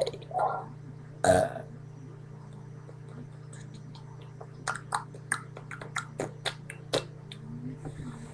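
A person burps once, loudly, about a second in. A quick run of sharp clicks, about four a second, follows a few seconds later. A steady low hum runs throughout.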